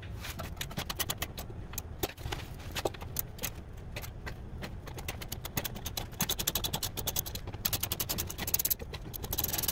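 Hand socket ratchet clicking in quick runs as the bolts of a truck's rear bump-stop bracket are worked loose, with the odd clink of the socket and extension against the bolt.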